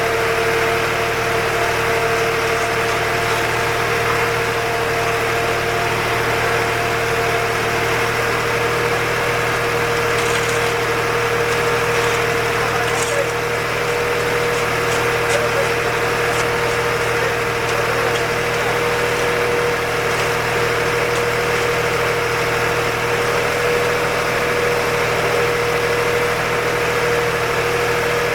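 Concrete mixer truck's engine running steadily, with a steady whine held over it; a few light clicks come about halfway through.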